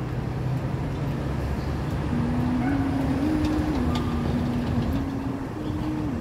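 City street traffic: a passing car's engine and tyres make a steady low rumble. From about two seconds in, a simple tune of held notes steps up and down over it, each note about half a second long.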